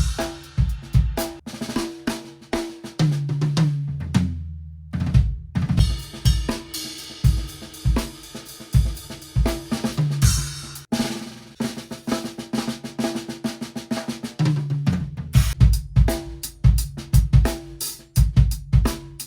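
Acoustic drum kit played live: snare, bass drum and toms with cymbals, a fill down the toms a few seconds in, a short pause, then a groove under a washing cymbal, another brief stop, and more tom and bass-drum playing near the end.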